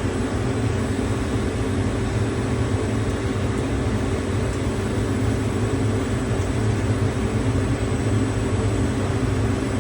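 CNC machine tool running steadily in a machine shop: a constant mechanical hum with a faint, steady high whine.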